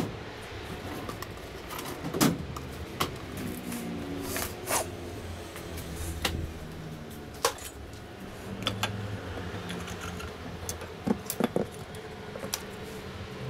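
Hand tools and workshop gear being handled and put away: scattered knocks, clinks and rattles of metal tools, with a few sharper knocks around two seconds in and near the end.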